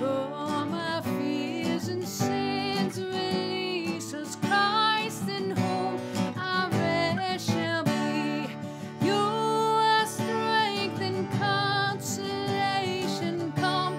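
A woman singing with vibrato while strumming an acoustic guitar.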